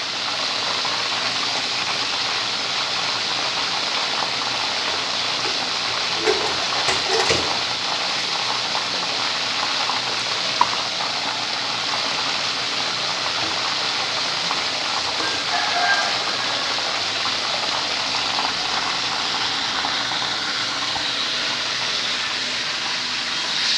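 Chicken wings frying in hot oil in a pan, a steady sizzle, with a few light knocks about six to seven seconds in.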